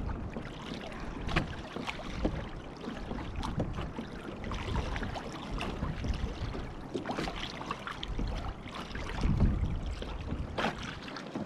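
Water splashing and lapping against the hulls of a Hobie Tandem Island sailing kayak under way, in irregular small splashes, with gusts of wind rumbling on the microphone.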